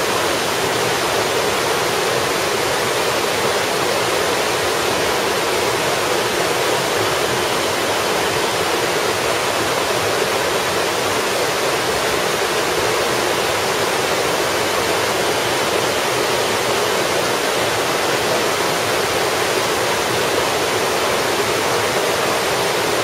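Multi-tiered waterfall of many small cascades, water pouring and splashing steadily over rocks as an unbroken rushing sound.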